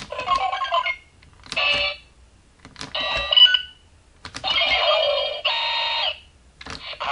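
CSM Ixa Riser toy's keypad buttons pressed one after another, each press a click followed by a burst of electronic beeps and sound effects from its speaker; four bursts, the last the longest.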